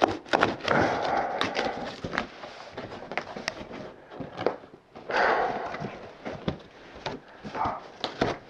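A cardboard parcel being opened by hand: repeated knocks and scrapes of cardboard, with two longer tearing, rubbing stretches of packing tape and flaps, about a second in and again about five seconds in.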